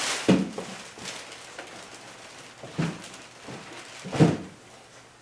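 Plastic wrapping rustling and three dull knocks as the heavy, still-wrapped drum sander is handled and shifted, the last knock the loudest.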